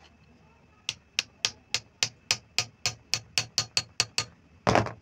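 A quick run of about fourteen metal-on-metal taps, about four a second, as a metal rod is knocked against a sewing machine hand wheel's stop-motion nut to drive it tight, then one longer, louder scraping clatter near the end.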